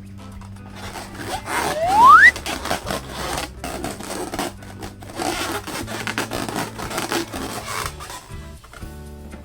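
Latex balloon being rubbed and squeezed, with one loud, short squeak rising in pitch about two seconds in, over steady background music.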